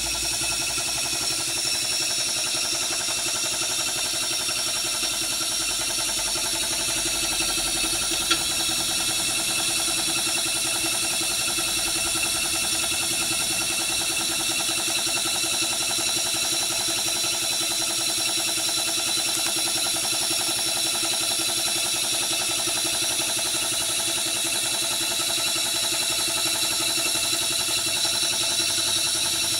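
Gas-fired 1-inch-scale Minnie live-steam traction engine running steadily: a fast, even beat of the engine over a continuous hiss of steam and gas burner. One sharp click about eight seconds in.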